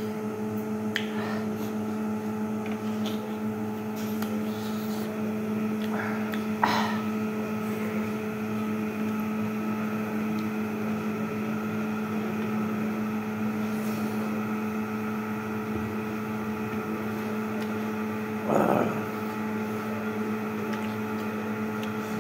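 A steady mechanical hum at one constant pitch, with a sharp click about seven seconds in and a brief louder noise a few seconds before the end.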